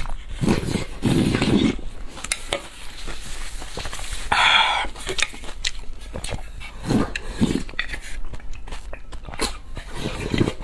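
Gulping and swallowing as a woman drinks from a tipped-up bowl held to her mouth: three runs of deep gulps (near the start, about seven seconds in, and at the end), with a brief hiss about four and a half seconds in and small wet mouth clicks between.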